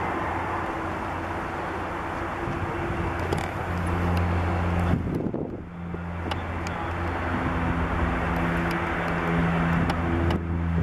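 Jet engines of a Boeing 777-200ER airliner rolling out after touchdown: a steady rush with a low hum under it, dipping briefly about halfway through.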